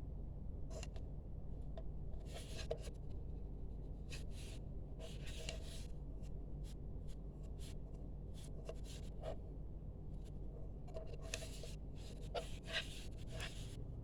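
Scratchy rustling and rubbing of packaging and parts being handled, in short irregular bursts over a steady low hum.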